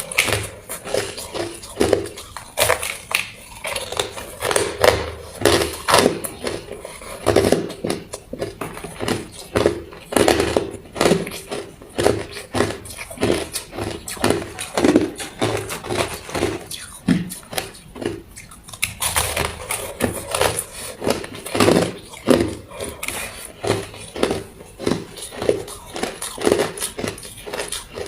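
Ice being bitten and chewed close to the microphone: a dense, irregular run of sharp crunches, with a short pause about two-thirds of the way through.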